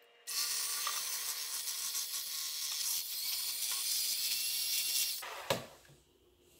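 Electric hand mixer running, its beaters whipping heavy cream with powdered sugar in a metal bowl: a steady whir and splatter that starts just after the beginning and cuts off about five seconds in, with a click just after.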